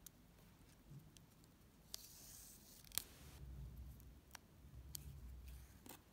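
Faint rustle of a needle and thread being drawn through gathered satin ribbon, with a few small clicks as the thread is knotted off; a brief hiss about two seconds in and a sharper click near three seconds.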